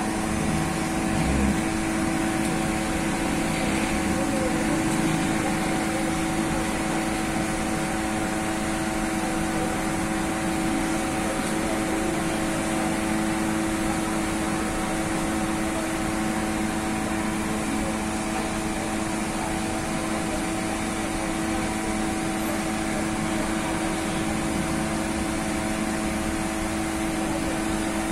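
Steady hum and rush of bakery machinery running without change, a constant drone with several fixed tones over an even noise.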